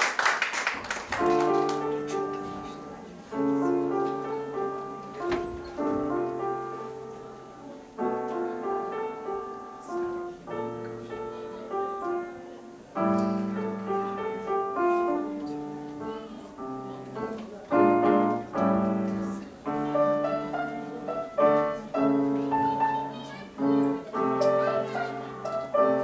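Grand piano played solo, with low bass notes under a higher melody in separate phrases. The tail of the audience's applause fades out in the first second.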